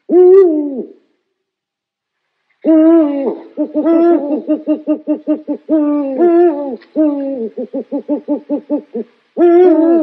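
An owl hooting. It gives one call falling in pitch, then after a short pause a run of wavering hoots lasting about six seconds, which speed up into a fast series of short notes. Another falling hoot comes just before the end.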